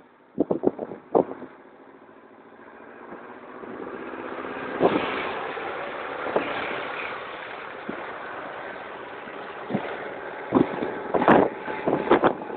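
Farm tractors' diesel engines running as the tractors drive past one after another, swelling as the first one nears about five seconds in. Several sharp thumps come near the start and again near the end, louder than the engines.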